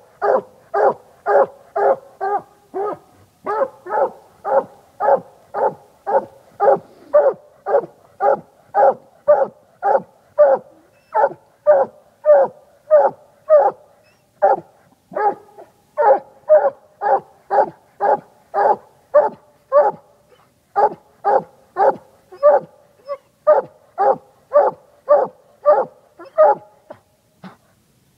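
Coonhound barking treed, reared up against the trunk: a steady, rhythmic chop of short barks at about two a second, with a couple of brief breaks. This is the sign that the hound has a raccoon up the tree.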